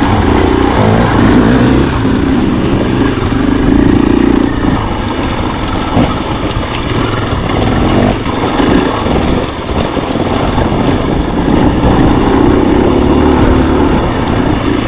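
Dirt bike engine running while riding rough single track, the throttle opening and closing so the engine note swells and falls every few seconds.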